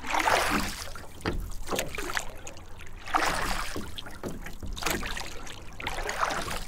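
Kayak paddle strokes splashing in water, with drips and trickles between them; the splashes swell about every three seconds.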